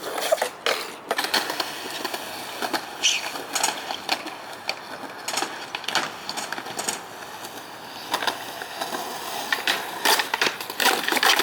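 Skateboard wheels rolling over pavement, with repeated sharp clacks of the board being popped and hitting the ground.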